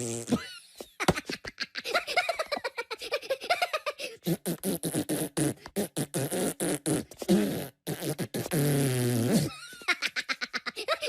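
Comic cartoon vocal sound effects: rapid strings of sputtering pops and clicks mixed with squeaky, sliding voice sounds, like cartoon vehicle characters babbling and making mouth noises.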